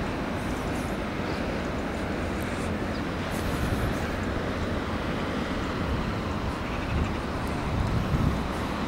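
Wind buffeting the camera's microphone: a steady rushing noise with an uneven low rumble, swelling a little near the end.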